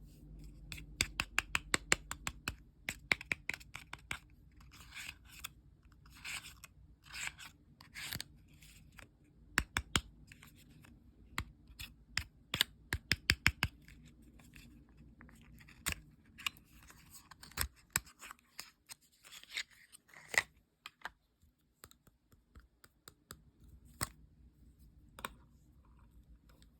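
Lip gloss packaging being opened by hand: a run of sharp plastic clicks and snaps, some in quick runs of several a second, with short bursts of rustling and tearing.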